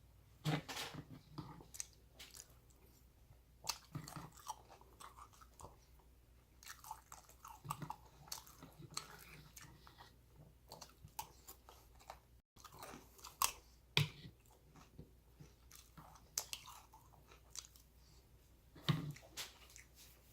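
Close-up chewing and crunching of a mouthful of Cinnamon Toast Crunch cereal in milk: irregular soft crunches and wet chewing, with a few sharper crackles.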